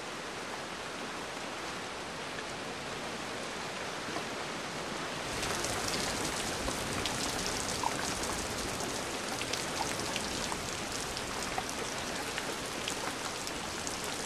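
Steady rain that turns louder and brighter about five seconds in, with individual drops audible as fine crackling clicks.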